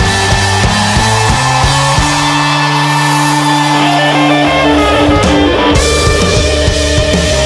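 Rock music with electric guitar and drums; about two seconds in the drums drop out under held guitar notes, and a gliding guitar note slides down in pitch before the full band comes back in.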